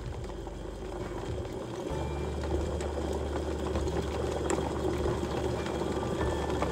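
Electric kettle heating water, a steady rumble building toward the boil that grows louder about two seconds in.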